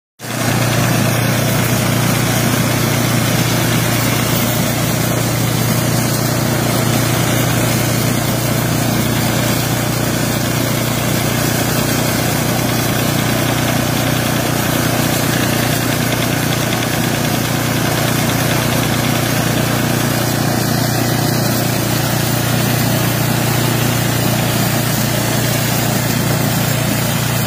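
Gas-engine snowblower running steadily while throwing snow: a constant, unchanging engine drone with a strong low hum.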